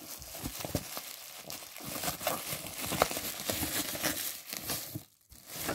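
Packaging being handled: a cardboard box flap and plastic and paper packing wrap crinkling and rustling in irregular crackles as a wrapped item is pulled out. The handling briefly stops just after the fifth second.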